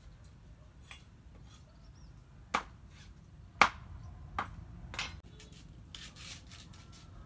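Four sharp knocks or chops about a second apart, the second the loudest, followed by a brief scraping rustle.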